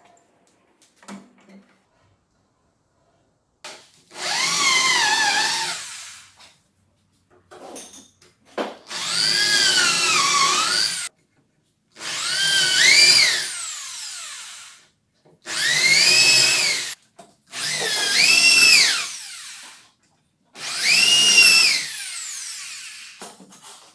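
Handheld electric drill boring into the edge of a wooden board through a doweling jig. It runs in about six bursts of a second or two each, and the motor's pitch rises and falls as the trigger is squeezed and let go.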